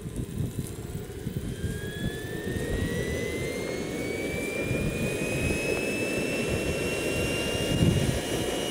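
Small model jet turbine (KingTech Falcon 120) spooling up: a thin whine rises steadily in pitch over several seconds, then levels off, over a low rushing roar.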